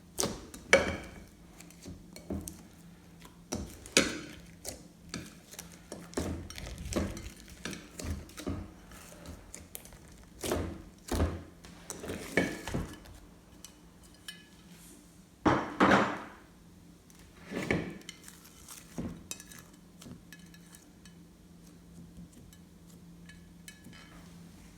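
Glossy slime being mixed and handled: irregular clicks, taps and squishes with short pauses, a few louder ones in the middle and fewer toward the end.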